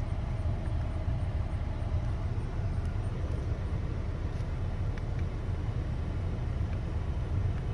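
The 2014 Ford Escape's 1.6-litre four-cylinder engine idles with a steady low hum, warming up while its freshly refilled cooling system is bled of air.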